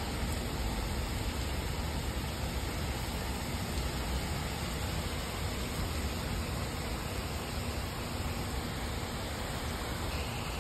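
Steady rainfall: an even, unbroken hiss with a low rumble underneath.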